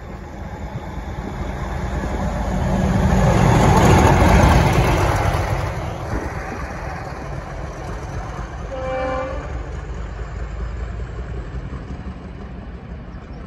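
Class 50 diesel locomotive with an English Electric 16CSVT V16 engine, running light engine through a station. Its engine and wheel noise builds to a loud peak as it passes about four seconds in, then fades as it draws away. A single short horn note sounds about two-thirds of the way through.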